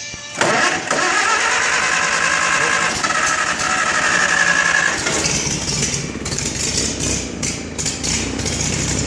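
An engine being cranked by its starter that won't start: a steady whine for about four and a half seconds, then a rougher, uneven stretch of noise.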